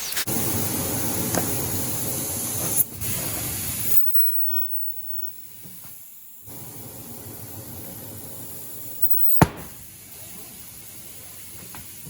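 Air hissing out of a car tire through the open valve stem as the tire is deflated with the valve core removed. The hiss is loud for the first few seconds, then drops to a quieter steady hiss, with one sharp click about nine seconds in.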